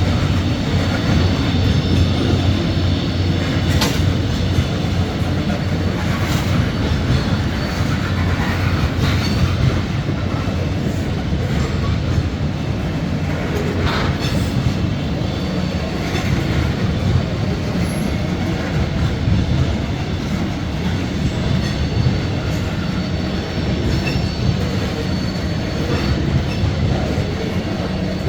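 Freight train rolling past: a steady rumble of wheels on rail, with a few sharp clanks.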